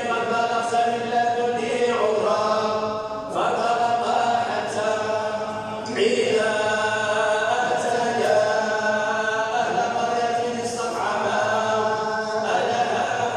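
Quran recitation: a melodic chanting voice holding long notes, phrase after phrase, with brief pauses between phrases about three and six seconds in.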